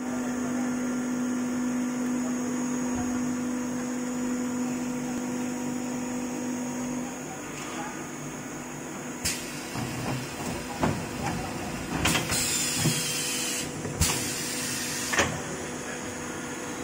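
Automatic weighing liquid-filling machine running. A steady motor hum lasts about the first seven seconds, then come sharp mechanical clicks and two bursts of hiss a little after halfway.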